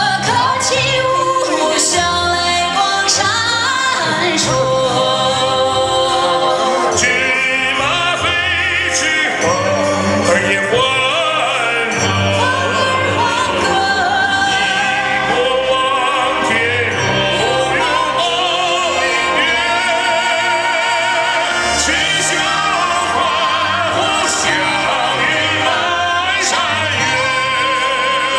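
A man and a woman singing a duet into microphones, with vibrato on held notes, over a full musical accompaniment.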